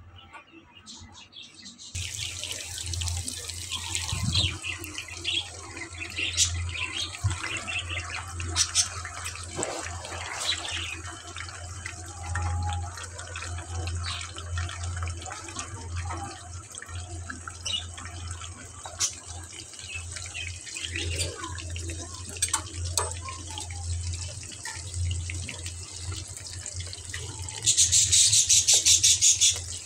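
Marinated fish pieces deep-frying in hot oil in a karahi: steady sizzling with frequent crackles and pops over a low steady hum. The sizzle starts about two seconds in and turns sharply louder near the end.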